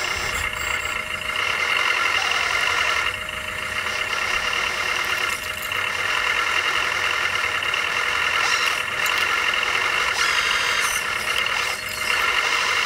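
1/14-scale RC construction machines and trucks running: a steady whine of their electric drive motors and hydraulic pumps, dipping briefly in loudness a few times.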